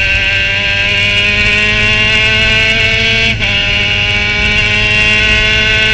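Formula Mazda race car's rotary engine at full throttle, heard from the cockpit, its pitch rising as the car accelerates. A little past halfway the sound dips and the pitch steps down in a quick upshift, then climbs again.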